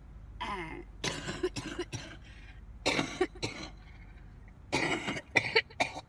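A woman coughing in three fits of several short coughs each, the last fit the loudest.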